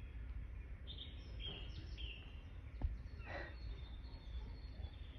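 Birds chirping in a video playing through a laptop's speakers: a few short, scattered chirps over a low steady hum. A single short tap a little past halfway.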